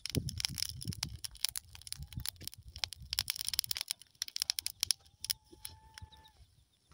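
Burning heap of dry grass crackling and rustling as a stick pokes it. The crackles are dense at first and thin out in the second half. A short steady tone sounds for about a second a little past five seconds in.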